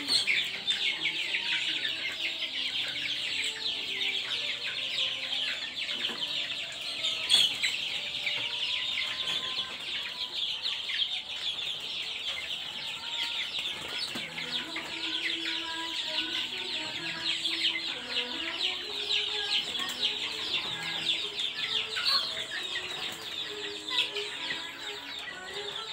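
A caged flock of young Javanese village chickens, about six weeks old, peeping and chirping without a break. Many high-pitched calls overlap.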